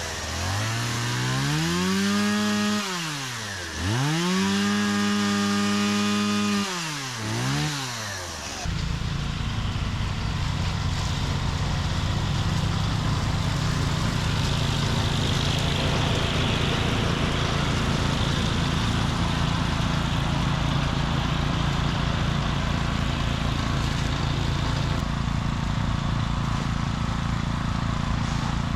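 A two-stroke chainsaw is revved up and down about three times, its pitch rising, holding and falling. About eight and a half seconds in, the sound changes abruptly to a steady, rough running sound that lasts to the end.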